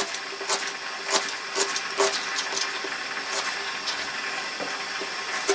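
Kitchen knife chopping onion on a plastic cutting board: irregular sharp knocks of the blade hitting the board, about one or two a second, over a steady faint hiss.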